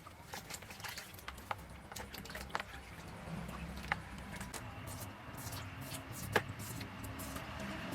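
Scattered light clicks and knocks of kitchen work, with two sharper knocks about four and six seconds in, over a low steady hum.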